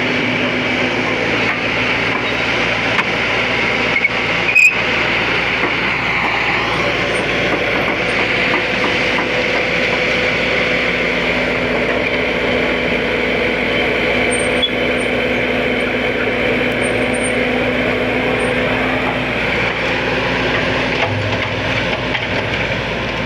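A heavy engine running steadily at an even pitch, with one sharp knock about four and a half seconds in.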